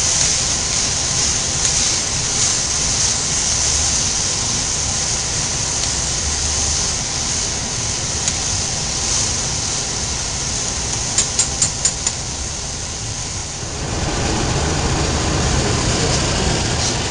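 Rice frying and sizzling in oil in a saucepan as it is stirred with a spoon, a steady hiss: Mexican rice being browned with onion and tomato before the water goes in. About eleven seconds in there is a quick run of about five clicks, and near the end the sound shifts to a fuller, lower rushing noise.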